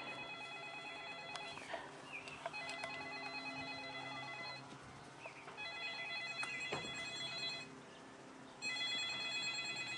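A phone ringtone ringing four times, each ring a steady multi-note tone about two seconds long with about a second between rings.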